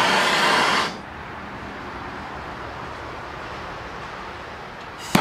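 Gas brazing torch flame hissing loudly, then dropping away sharply about a second in, leaving a quieter steady hiss while the heat is off the aluminum tank; near the end the loud torch hiss comes back abruptly with a short sharp onset.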